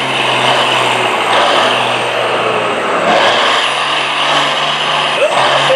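Semi-truck's diesel engine running hard at full throttle under heavy load, pulling a weight sled. The engine note dips briefly about three seconds in, then settles slightly higher.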